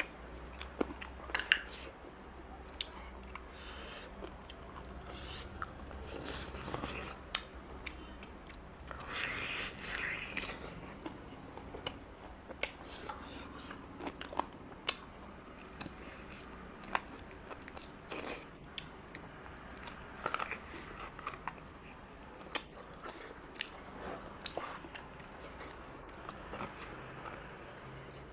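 Close-miked eating sounds: a person chewing and biting a meal of mutton curry with rice, with crunchy bites and many short, sharp mouth clicks. There is a louder stretch of crunching about ten seconds in.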